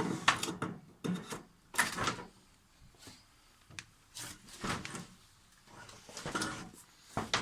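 A string of irregular knocks, clanks and scrapes, as of something hard being handled or a drawer or door being worked, about a dozen spread over several seconds.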